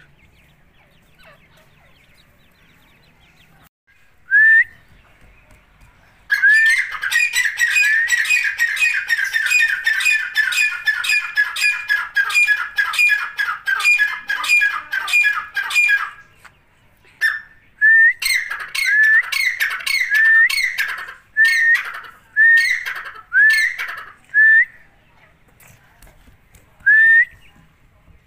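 Grey francolin calling: loud, short whistled notes, each ending in an upward hook. After a single note, they come in a rapid run for about ten seconds, then spaced out one by one, with a few lone calls near the end.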